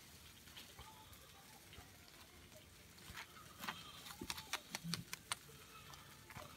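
Faint scraping and light clicks of a metal spoon spreading sauce over a toasted burger bun; the clicks start about halfway through and come in a quick irregular run.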